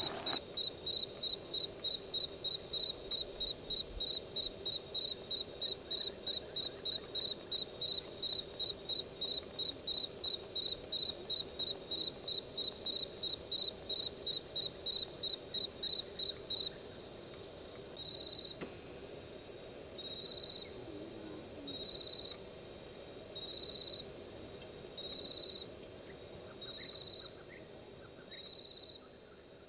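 A high-pitched tone pulsing quickly, about three times a second, over a low steady hum; about two-thirds of the way through the pulses become longer and slower, about one every second and a half.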